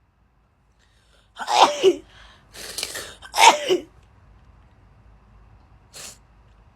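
A girl sneezing twice in a sneezing fit, each a loud voiced sneeze about two seconds apart, with a noisy rush of breath between them, then a brief breath sound near the end.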